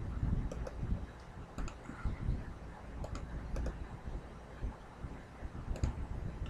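Scattered keystrokes and clicks on a computer keyboard, a few at a time with gaps between, over a low rumble of handling noise.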